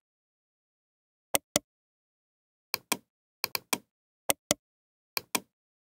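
Computer mouse button clicks, mostly in quick double-click pairs, with dead silence between them, about eleven sharp clicks in five groups.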